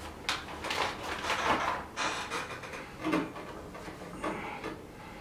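Soft, irregular rustling and handling noises as cotton wool is pushed and packed into a plastic funnel to form a filter.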